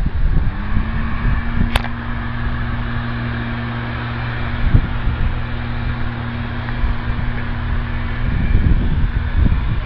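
Steady machine hum with a constant low drone, under a gusty low rumble of wind on the microphone. There is one sharp click about two seconds in.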